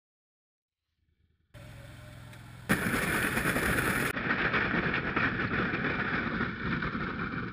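Duck boat under outboard power pushing through a sheet of thin ice, the ice crackling and scraping along the hull over the running motor. It starts about a second and a half in and gets much louder about a second later.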